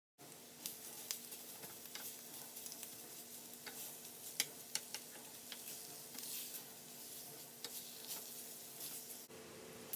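Italian sausage sizzling as it browns in a frying pan, a steady hiss dotted with sharp crackles and pops of spitting fat.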